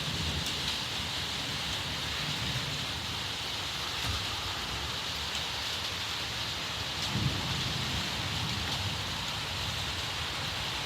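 Steady rain falling, with a low rumble of thunder underneath that swells a few times, most strongly about seven seconds in.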